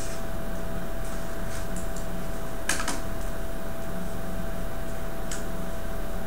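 Steady room noise with a constant faint hum, broken by a few soft clicks and taps, the clearest a quick double click about two and a half seconds in and another single click later.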